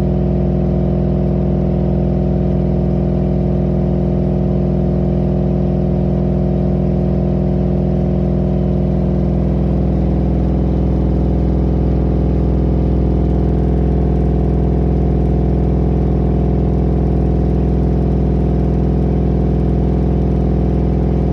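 LG F4V5RYP2T front-loading washing machine in a high-speed spin, giving a loud, steady drone with vibration. The owner takes this level of noise and vibration during spin for a defect in the machine.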